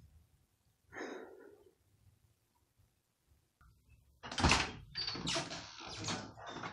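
An interior door opening with a loud thump about four seconds in, followed by several more knocks and bumps.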